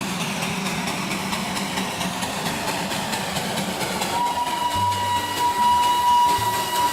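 Darjeeling Himalayan Railway steam toy train running with a fast, rhythmic clatter. About four seconds in, a steady high tone with low notes under it comes in.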